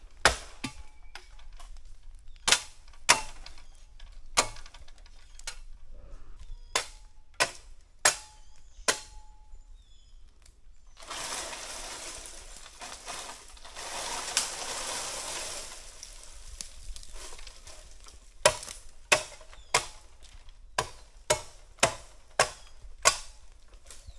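Sharp chops of a blade into a bamboo stalk, one every half second to a second, felling the stalk. A few seconds of rustling and scraping come about halfway through, as the cut bamboo pole is pulled through the grove and the dry leaf litter. The chopping resumes near the end.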